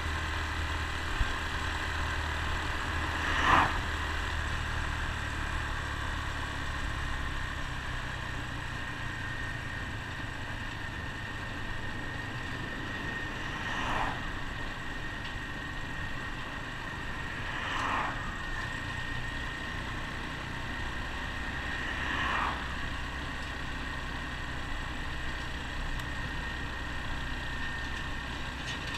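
Honda Super Cub C125's small single-cylinder four-stroke engine running steadily under way, heard from the rider's seat with wind and road noise. Four brief louder swells of noise rise over it.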